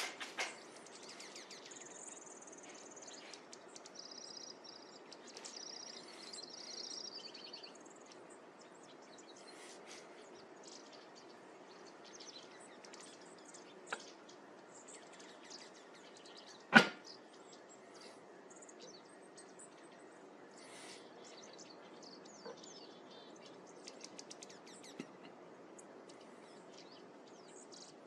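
Small birds chirping in short high calls, busiest in the first several seconds and then scattered, over a steady low background rush. One loud sharp click comes about 17 seconds in.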